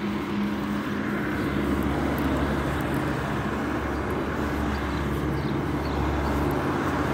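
Low, steady engine drone of a motor vehicle over a rumble, with no sharp events.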